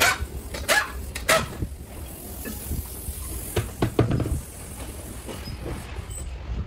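Sharp metallic clanks with a short ringing tone, a few in the first second and a half, then a cluster of knocks and heavier thumps about four seconds in, as a steel wheel with its tyre is pulled off a car's rear hub.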